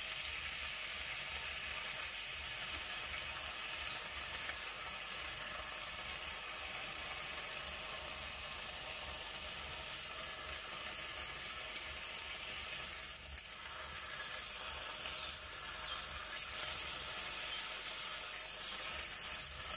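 Ham slices sizzling as they fry in a nonstick pan: a steady hiss that dips briefly about 13 seconds in.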